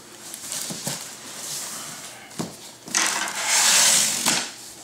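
Handling of a large cardboard box being opened: a few light taps and knocks, then about three seconds in a loud, scraping rustle of cardboard flaps being pulled open over bubble wrap, lasting about a second and a half.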